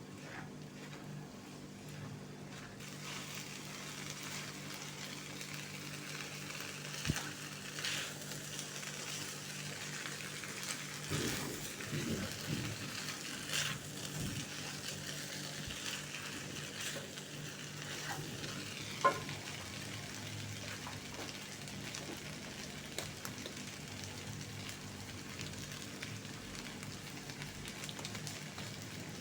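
Food frying in a pan, a steady sizzle that grows fuller about three seconds in, with stirring and a few sharp knocks of a utensil against the pan.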